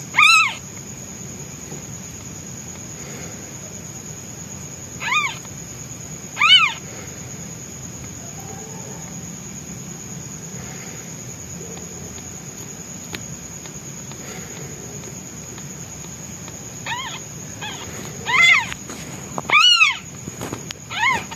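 Newborn white kitten meowing loudly in high cries that rise and fall in pitch: one near the start, two more around five to seven seconds in, then a quicker run of about five near the end. They are a hungry kitten's distress calls for its absent mother.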